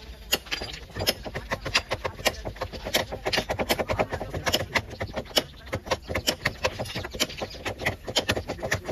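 Dense, irregular clicking and clinking of metal over a low steady hum, as a hydraulic rail weld trimmer works on a freshly poured, still glowing thermite weld.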